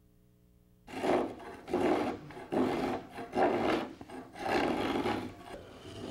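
Spokeshave shaving a bevel onto the edge of a plywood station mold: a series of short cutting strokes, starting about a second in.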